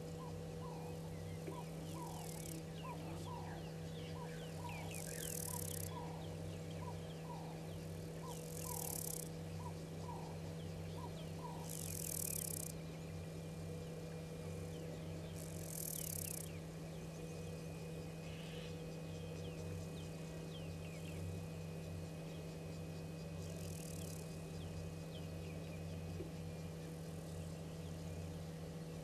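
Quiet bush ambience: a bird repeats short falling notes about twice a second for the first dozen seconds, over a steady low hum. Short high hissing bursts come every few seconds.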